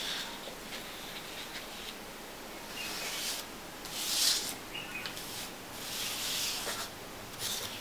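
Sheet of paper sliding and rubbing across the desk as it is turned by hand, in four or five short rustling strokes, the loudest about four seconds in.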